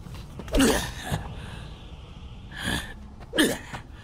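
A man's short, breathy effort grunts and gasps, three in quick succession: a character straining as he heaves himself upward.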